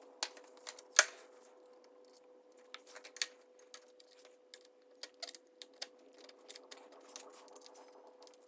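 Irregular light clicks and knocks of small hard objects being handled, with one sharper knock about a second in, over a faint steady hum.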